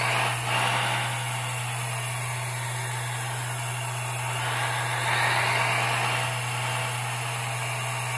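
1/14 scale RC hydraulic excavator running, its hydraulic pump and machine noise going steadily with a low hum. The noise swells louder and higher about five seconds in as the boom and stick move under hydraulic power.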